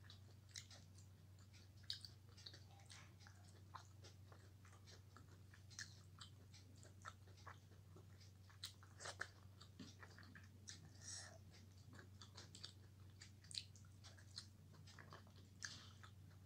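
Close-up eating sounds: soft chewing with many small, irregular mouth clicks and smacks from a person eating rice and fish curry by hand, over a steady low hum.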